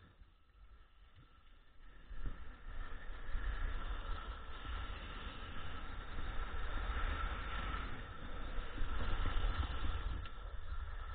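Skis scraping and hissing over packed snow, with wind rumbling on the camera microphone. Faint for the first couple of seconds, then steady and louder, fading near the end.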